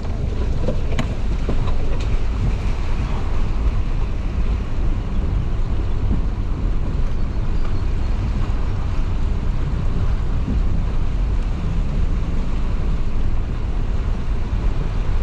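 Four-wheel drive running with a steady low rumble while crossing a shallow river, with water washing around it and wind buffeting the microphone.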